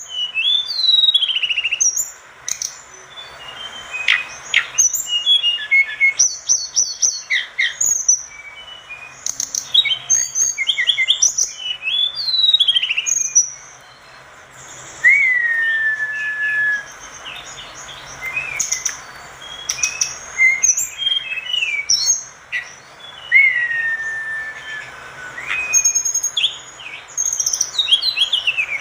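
Tledekan gunung singing a long, varied song of rapid chirps, trills and downslurred notes, broken by longer whistled glides that fall slowly.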